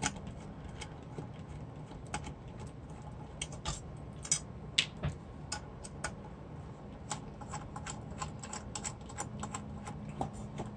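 Small screwdriver backing screws out of an aluminium amplifier case: faint, irregular clicks and ticks of the bit and screws against the metal.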